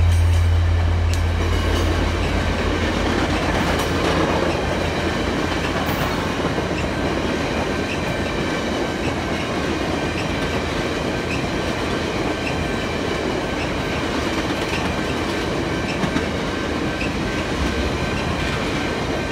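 Stainless-steel passenger cars of a VIA Rail train rolling steadily past, wheels clattering over the rail joints and crossing, with faint regular ticking from the crossing signal. A low diesel rumble from the departing locomotive fades over the first couple of seconds.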